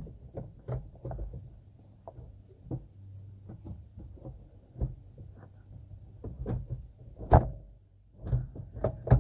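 Plastic radiator fan shroud being shifted and pushed into place by hand: a series of irregular knocks, clicks and scrapes, the loudest a sharp knock about seven seconds in.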